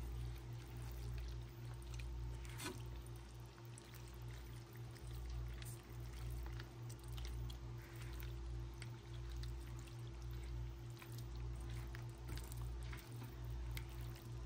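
Creamy Alfredo sauce with pasta simmering in a skillet, bubbling with scattered small pops.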